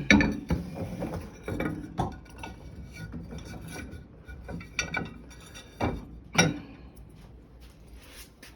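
Dishes clinking and knocking as they are set into a dishwasher's racks: a string of separate sharp clinks and clunks with brief ringing, with rubbing and rattling from the racks between them.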